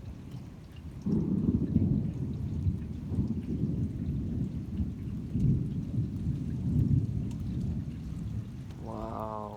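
Thunder during a severe thunderstorm: it breaks in suddenly about a second in and rumbles low and loud for about seven seconds, over steady rain.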